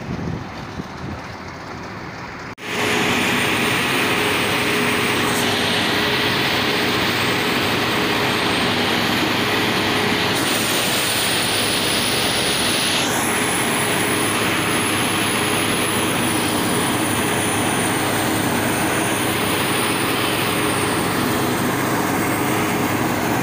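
New Holland self-propelled forage harvester running under load as it chops standing maize for silage and blows it out of the spout: a steady machine drone with a high whine over it. About two and a half seconds in, the sound jumps abruptly louder and then holds level.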